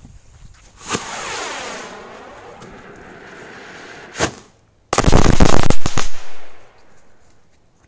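Firework rocket motor igniting with a sudden hissing rush about a second in that fades over the next few seconds. A sharp crack follows near four seconds, then a very loud burst of crackling bangs lasting about a second and a half.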